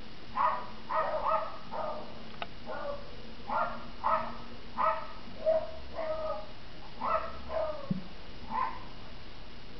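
Wire fox terrier barking repeatedly at a squirrel treed above it: about fifteen short, sharp barks at an uneven pace of one or two a second, stopping about a second before the end.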